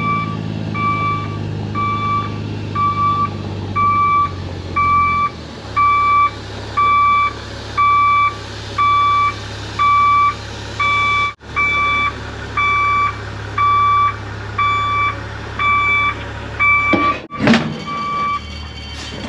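Semi truck reversing: its backup alarm beeps at an even pace over the steady running of its diesel engine, whose note drops about five seconds in. Near the end the beeping stops and sharp clunks follow as the truck couples to the lowboy trailer's detachable gooseneck.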